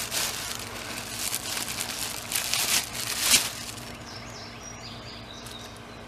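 Brown paper bag holding potatoes rustling and crinkling as it is handled and hung on a hanging scale's hook, for about the first three and a half seconds, then settling quiet.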